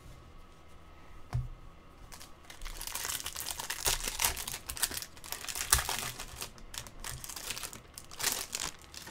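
Foil wrapper of a Topps baseball card pack being torn open and crinkled by hand: a long run of crackling rustles with sharper tearing spikes, after a single light tap about a second and a half in.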